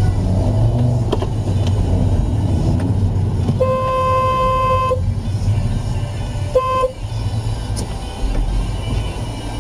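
Car horn sounding: one long blast of just over a second, then a short toot about two seconds later, over a steady low road rumble.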